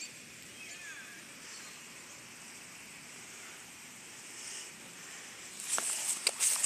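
Low outdoor background with a faint steady high hiss, then from about six seconds in, footsteps rustling through grass with scattered clicks.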